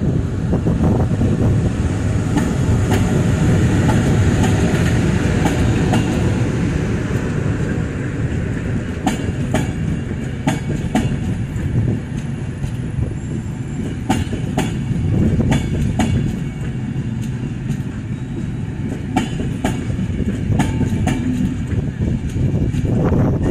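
Passenger train hauled by an EP09 electric locomotive passing close by, with a steady rumble of wheels on rail. As the coaches roll past, clusters of sharp clacks repeat every few seconds where the wheelsets cross rail joints.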